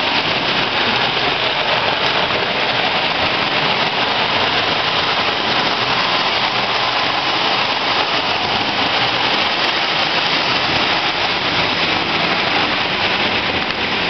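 Marx tinplate toy trains running on tin track: a steady, dense rattle of metal wheels on metal rails.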